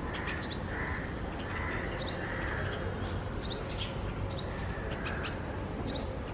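Male sunbird calling: short, sharp, high chirps, each sweeping down in pitch, about five of them spaced irregularly, over steady low background noise.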